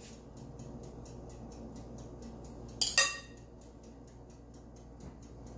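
A metal spatula clinks twice in quick succession about three seconds in, with a short metallic ring after each; otherwise only a faint low background hum.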